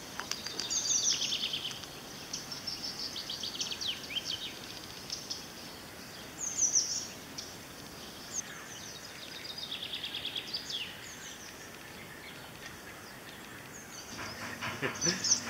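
Songbirds singing: repeated short phrases of chirps that fall in pitch, over a faint steady hiss. Near the end a low hum with rapid ticking comes in.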